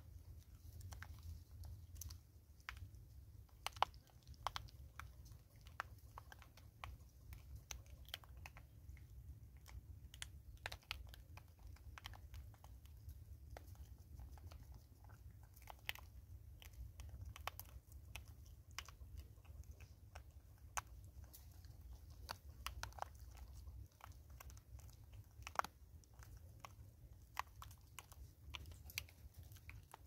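Vervet monkeys picking up and crunching scattered bird seed close by: an irregular run of small sharp clicks and crunches over a faint low rumble.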